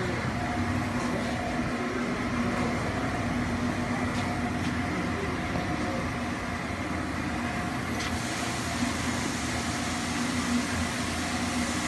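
Industrial machinery in a factory running with a steady hum, several constant tones over a rushing noise.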